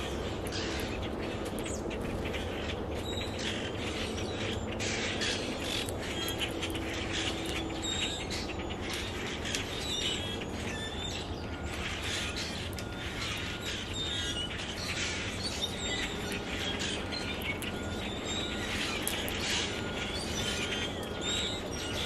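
Small songbirds chirping over and over, many short high chirps overlapping, with scattered sharp clicks.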